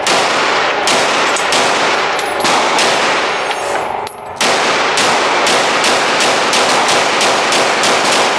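Rapid gunfire from firearms at an indoor range, shots in quick succession with ringing echoes, broken by a short pause about four seconds in before the shooting resumes.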